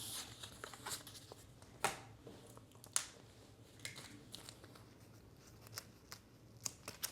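Quiet handling of Pokémon trading cards and their packaging: scattered short rustles, crinkles and light clicks, the sharpest about two and three seconds in.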